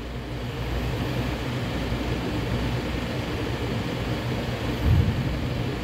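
A car engine idling steadily with a low, even hum, and a short dull thump about five seconds in.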